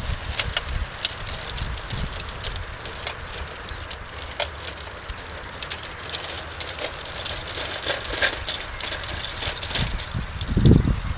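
Garden-scale model train running on outdoor track, its wheels clicking and rattling over rail joints and points, with a few low thumps near the end.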